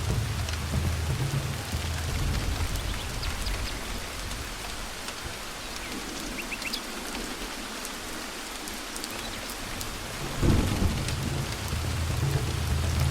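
Steady rain with thunder: a low rumble fades away over the first few seconds, then a new thunderclap breaks about ten seconds in and rolls on.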